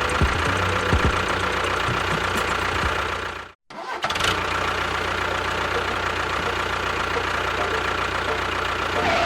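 A vehicle engine running steadily. It cuts out suddenly about three and a half seconds in and comes back unchanged a moment later.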